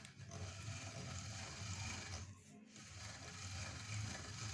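Hand-cranked stainless-steel pasta roller turning as a sheet of dough is rolled thin on its fifth setting: a steady low mechanical whirr of the crank and rollers, easing off briefly just after two seconds in.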